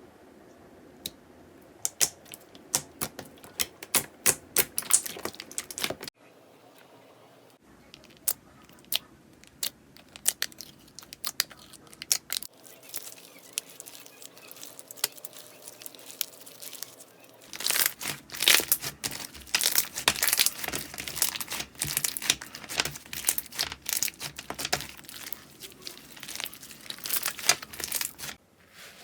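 Slime being squeezed and pressed by hand, giving crackling, popping clicks in quick clusters. The sound cuts abruptly a few times to new clips, and is densest in the last third.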